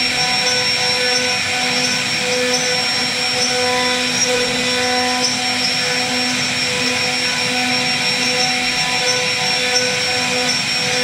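CNC router spindle running with a steady high whine as its bit carves a relief pattern into a wooden door panel. The cutting tones swell and fade every second or so as the bit works along the wood.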